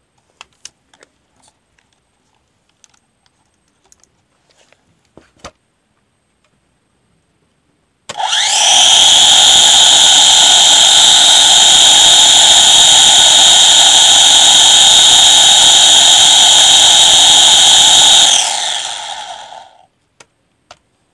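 S8000 drone's motors and propellers spinning up with a rising whine about eight seconds in, running at a loud, steady high whine for about ten seconds, then winding down. A few faint clicks come before it starts.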